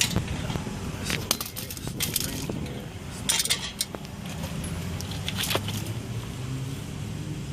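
Metal parts and tools being handled: scattered sharp clinks and short metallic rattles, a few clusters of them, over a low steady hum.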